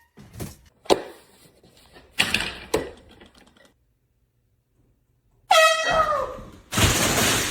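Handheld canned air horn going off: a loud honk that falls in pitch about five and a half seconds in, then a harsher, noisier blast. Before it come a few knocks and rustles and a short dead gap.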